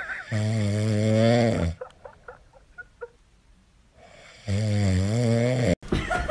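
A husky asleep on its back snoring: two long, loud snores about four seconds apart.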